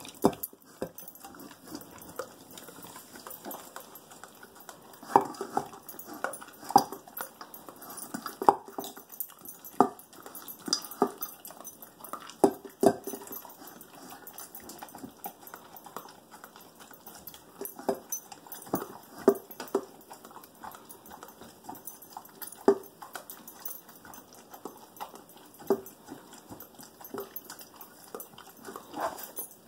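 A dog eating dry kibble from a plastic slow-feeder bowl: irregular crunches, clicks and knocks as he chews and noses the bowl around on the tile floor.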